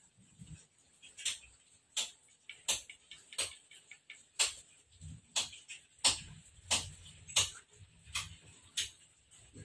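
Squirrel giving a short, sharp call over and over, about one every half second to a second, about a dozen in all.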